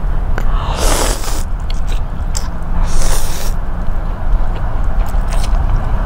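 Slurping mouthfuls of yellow egg noodles, two loud slurps about a second in and about three seconds in, with small chewing and mouth clicks between, over a steady low hum.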